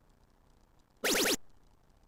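Electronic dartboard's synthesized scoring sound effect, a quick run of rising chirps lasting about a third of a second, about a second in: the cue for a dart landing in a triple, here triple 16.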